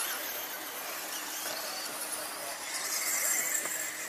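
Whine of RC stadium trucks' electric brushless motors racing on dirt, several high-pitched tones rising and falling in pitch as the drivers work the throttle.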